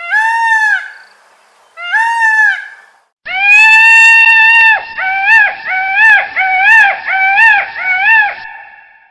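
Peacock calling: two loud, arching wails, then a long held wail that breaks into a quick run of about seven short calls, roughly two a second.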